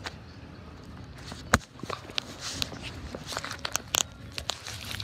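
Handling noise on a phone's microphone: scattered clicks, taps and rustling as the phone is carried and turned in the hand. There is one sharp knock about a second and a half in, and a cluster of clicks about three to four seconds in.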